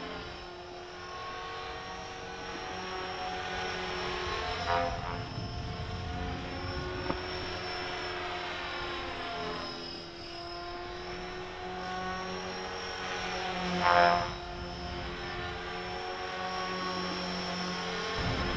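Align T-Rex 450 electric RC helicopter in flight: the whine of its brushless motor and rotors rises and falls in pitch as it circles. It swells briefly as it passes near, about five seconds in, and louder again about fourteen seconds in.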